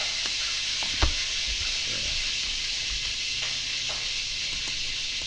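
Steady hiss of recording background noise, with a few faint clicks and one sharp thump about a second in.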